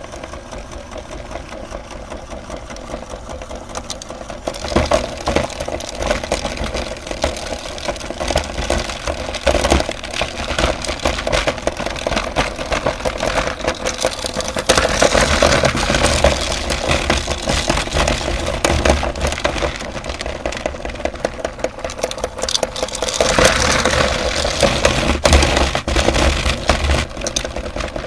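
Electric meat grinder running steadily, with dense crackling and crunching as candy is ground through it. It gets louder about five seconds in.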